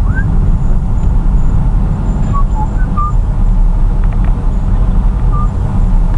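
Steady low rumble of a car driving slowly on a wet road, heard inside the cabin: engine and tyre noise. A few short high chirps sound over it.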